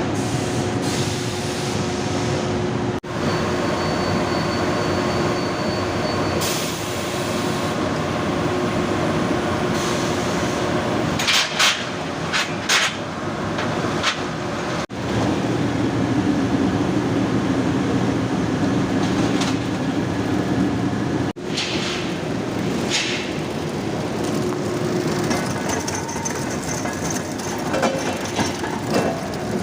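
Steel rolling mill and furnace machinery running: a loud, steady industrial din with a few short, sharp bursts of noise partway through.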